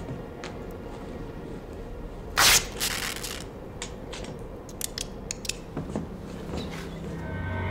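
Film sound effects: a low steady rumble, with one loud hissing burst about two and a half seconds in, followed by scattered crackles and clicks.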